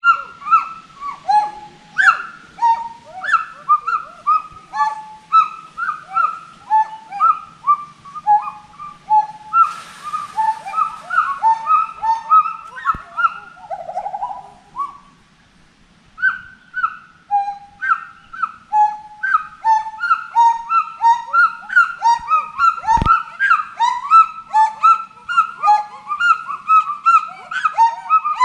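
Gibbons singing: a fast run of whooping hoots that rise and fall in pitch, several voices overlapping, with a short lull about halfway through before the calls pick up again.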